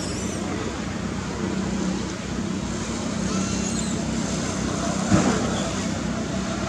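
Steady rumble of a running motor-vehicle engine and traffic, with a low hum throughout, and one short sharp knock about five seconds in.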